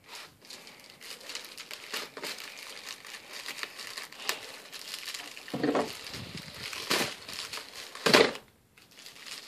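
Plastic bubble mailer crinkling and crackling as it is slit open with a folding knife and pressed flat by hand, with a few louder crunches in the second half.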